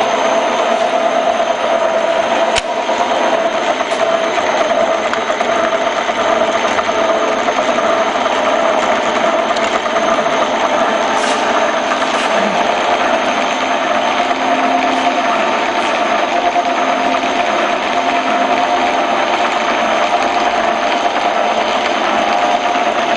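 TV-6 screw-cutting lathe running with its feed shafts turning: a steady mechanical whir of the motor and gearbox with a constant whine.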